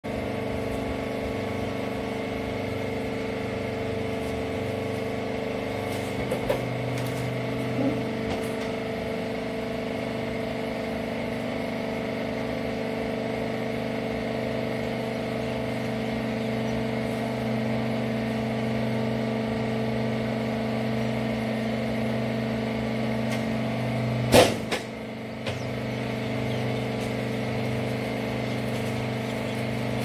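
Wiper-rag baler's hydraulic power unit running with a steady hum. A few light knocks come about 6 to 8 seconds in, and one sharp, loud clunk about 24 seconds in.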